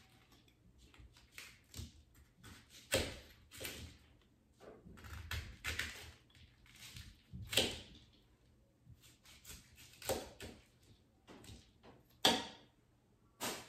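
Knife cutting cauliflower florets into bite-sized pieces on a cutting board: irregular cuts and knocks of the blade against the board, with the sharpest ones about three, seven and a half, ten and twelve seconds in.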